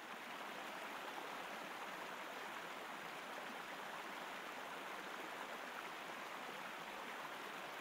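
Faint, steady rush of falling and flowing water from a small waterfall and its creek.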